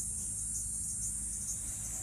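Steady high-pitched trilling of insects, with a faint low hum underneath.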